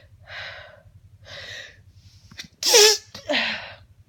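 A woman's hay fever sneeze. Two breathy in-breaths build up, then one loud, sharp sneeze comes about two and a half seconds in, followed by a short voiced outbreath.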